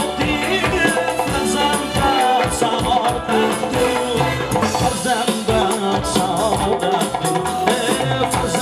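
Live band music: a man singing over electric guitar, drums and hand percussion.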